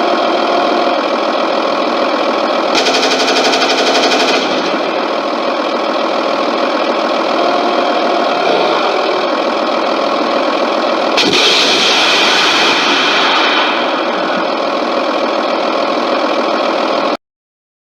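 Simulated Wiesel 1 tracked vehicle engine from an RC model's sound module, running steadily through a small speaker with little bass. A brief rapid rattling burst comes about three seconds in, and a louder rushing noise comes about eleven seconds in. The sound cuts off abruptly near the end.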